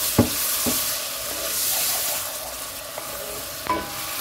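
Onion and spice masala sizzling in hot oil in a non-stick pan with a little water just added, stirred with a wooden spatula that knocks against the pan a few times. The sizzle is loudest in the first half and eases off.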